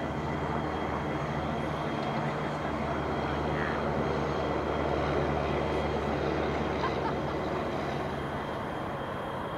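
G class and 81 class diesel-electric locomotives idling while the train stands stopped, a steady low engine note with a hum.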